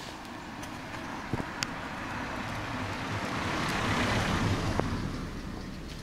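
A car driving past on an asphalt road: its tyre and engine noise swells to a peak about four seconds in, then fades away.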